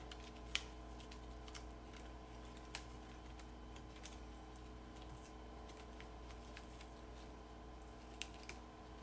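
Faint scattered clicks and rustles of gloved hands handling a gauze dressing and tape on a plastic training manikin's chest, the sharpest click about half a second in, over a steady low hum.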